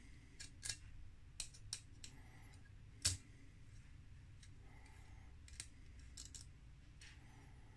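Allen key unscrewing a small screw from a 3D printer's hotend fan shroud: scattered light clicks and ticks of the metal key in the screw and the handled shroud. The sharpest click comes about three seconds in.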